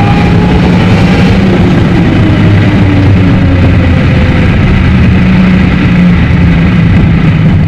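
McLaren 765LT's twin-turbo V8 heard inside the cabin, running steadily at highway cruise with a deep, even drone and slight drifts in pitch. The recording is played three times faster with its pitch kept normal and its treble boosted.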